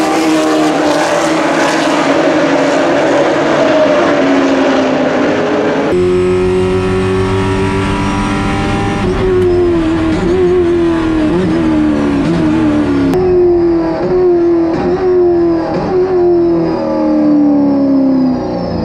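Several V8 stock cars race past together for the first six seconds. Then the sound switches to one car's onboard engine, its pitch climbing and dropping sharply through a run of gear changes and falling steadily near the end as the car slows for a corner.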